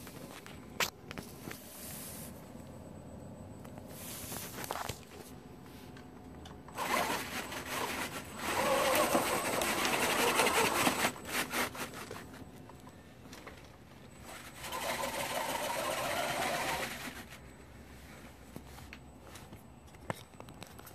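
Small electric drive of a 3D-printed RC snowcat, with its belt transmission and plastic tracks, whirring under a heavy load. It runs in two spells: about 7 s in for some four seconds, and again about 15 s in for some two seconds. A few sharp clicks come earlier.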